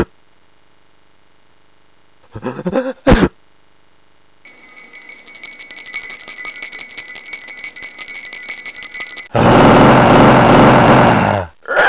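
An electric bell rings rapidly and steadily for about five seconds. It is followed by a louder, harsh burst of noise lasting about two seconds that cuts off suddenly.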